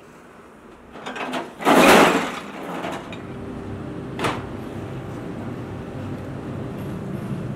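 Workshop machinery noise: a loud rushing, scraping burst about two seconds in, a single sharp knock a couple of seconds later, then a steady machine hum.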